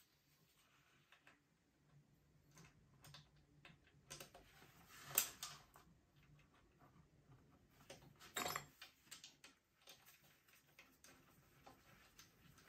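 Near silence broken by faint scattered clicks and light taps of metal parts being handled as the oil pump of a ZF 5HP24A automatic gearbox is eased down into its case, with a sharper click about five seconds in and another about eight and a half seconds in.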